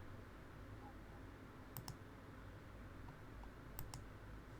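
Computer mouse clicking: two quick double clicks about two seconds apart, over a faint low hum.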